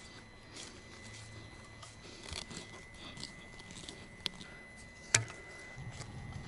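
Faint rustling and small plastic clicks as hands handle black drip-irrigation tubing and a fitting in wood-chip mulch, with one sharp click about five seconds in.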